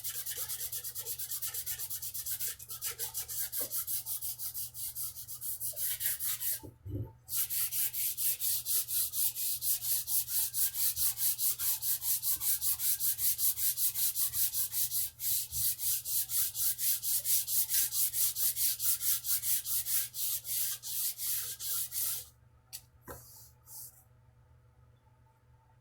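120-grit sandpaper rubbed back and forth by hand along a wooden guitar neck and its binding, in quick, even strokes of about three a second. There is a short break about seven seconds in, and the strokes stop near the end, leaving only a few light rubs.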